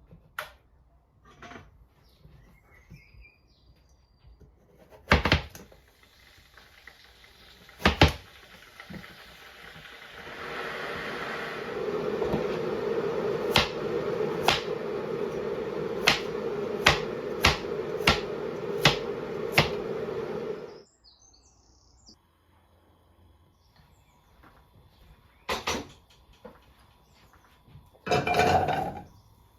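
Kitchen handling sounds: a few sharp knocks and clatters of dishes or cupboard doors, then about ten seconds of a steady rushing sound with light clicks about every half second over it, which cuts off suddenly, and two more clatters near the end.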